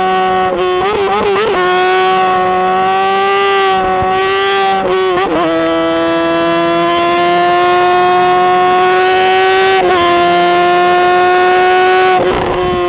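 Motorcycle engine held at high revs, a loud steady whine that climbs slowly in pitch, with brief dips and recoveries about a second and a half in, about five seconds in and near ten seconds in.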